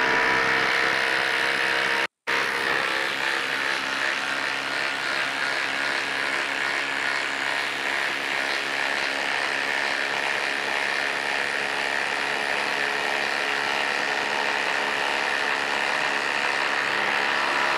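FLEX 24V brushless impact driver hammering steadily as it drives a long lag screw into a log, with one brief stop about two seconds in. The long, unbroken impacting is the tool working under heavy load on a hard drive.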